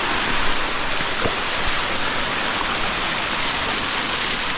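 Tumpak Sewu waterfall's falling water, heard from right in its spray: a loud, steady rush.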